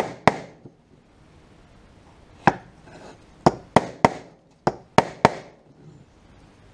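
Mallet tapping the steel mud shield further onto a Land Rover Series 2a differential pinion flange resting on a timber block, so that the shield clears the new pinion seal's raised lip: about nine sharp taps in uneven groups, each with a short metallic ring.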